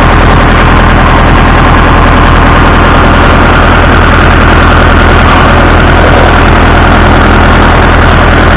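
Massey Ferguson 165 tractor engine running steadily and loud, with a knock that the owner takes for a connecting rod knocking.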